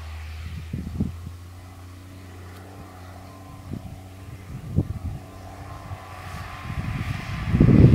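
Distant Case IH 285 hp tractor engine running steadily under load while pulling a disc harrow. Wind buffets the microphone throughout, in gusts that grow much louder near the end.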